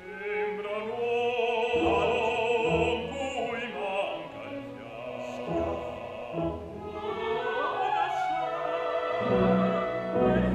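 Opera singing with orchestral accompaniment: a voice holds long notes with a wide vibrato over the strings.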